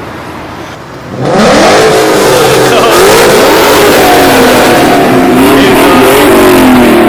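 Ford Mustang 5.0 V8 being revved hard while parked, starting suddenly about a second in, its pitch climbing and falling several times and very loud. It sounds modified rather than stock.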